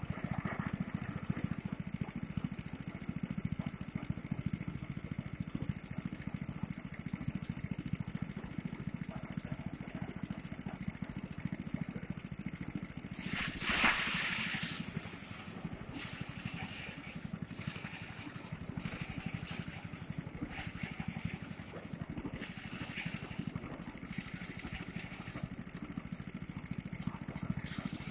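Small engine of a motorised rice thresher running steadily, with a louder burst of rushing noise lasting about a second and a half around halfway through.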